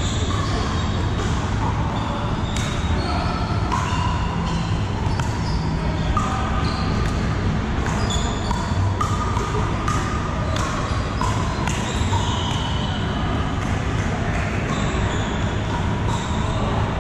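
Pickleball paddles striking the hollow plastic ball and the ball bouncing on the hard floor, sharp pops scattered irregularly across many courts, in a large hall. Indistinct chatter from players fills the background.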